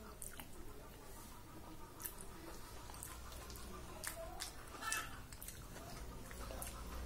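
Faint wet chewing of a mouthful of soft khichdi, with scattered short clicks and smacks about once a second, and fingers squishing soft rice on a steel plate.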